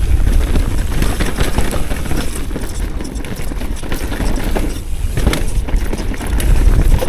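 Wind rumbling on the microphone while a mountain bike rattles down a dirt trail at speed, its tyres and frame knocking over bumps.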